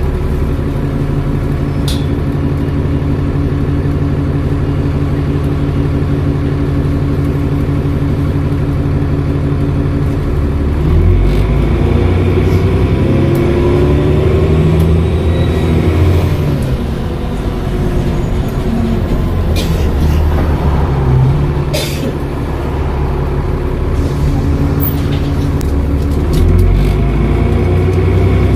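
Dennis Trident double-decker's diesel engine idling steadily for about ten seconds. Then it revs up as the bus pulls away, its pitch climbing and dropping through the Voith automatic gearbox's shifts, with a faint high turbo whistle during the first climb. A few sharp clicks sound along the way.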